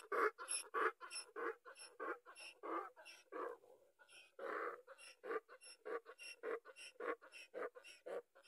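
Donkey braying: a long run of rhythmic pulses, about three or four a second, with a longer drawn-out note about four and a half seconds in.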